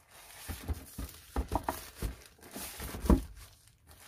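A packaged product box being handled: irregular knocks, scrapes and rustles of cardboard and packing material, the loudest knock about three seconds in.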